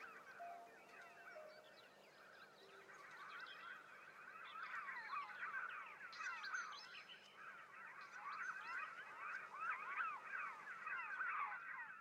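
A chorus of many birds chirping and twittering together, their quick calls overlapping and growing louder after the first couple of seconds. The last notes of the orchestral score fade out at the start.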